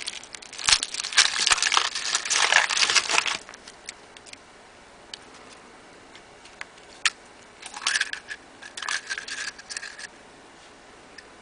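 Foil wrapper of a chocolate surprise egg crinkling and crackling as it is handled and peeled off, in two bouts: one in the first few seconds and another near the end.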